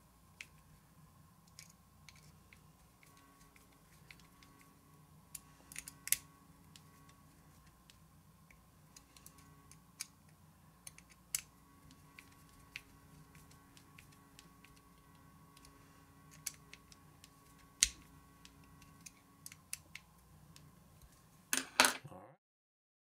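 Small scattered clicks and taps of a screwdriver snugging up the screws of a plastic RC differential case, about one every second or two over a faint steady hum. A quick cluster of clicks comes near the end, then the sound cuts to silence.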